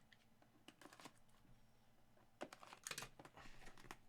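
Near silence with faint, scattered clicks and light rustling, a short cluster of them a little over two seconds in.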